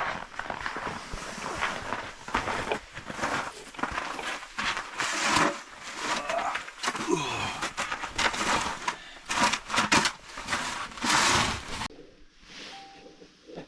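Irregular crunching and scraping on snow and ice, in quick uneven strokes that stop about twelve seconds in.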